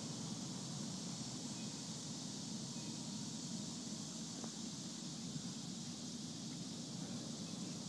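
Faint, steady outdoor background noise under a stormy sky: an even hiss with a low hum and no distinct events.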